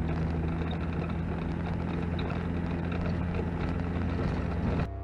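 A vehicle driving along a dirt road, its engine running steadily under rough road and wind noise; it cuts off suddenly near the end.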